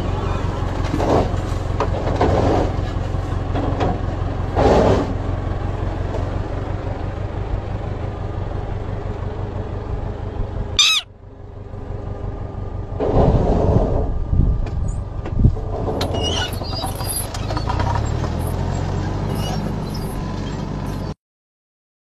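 Tractor engine running close by with a steady low rumble, a few short louder bursts rising over it. The sound cuts off suddenly near the end.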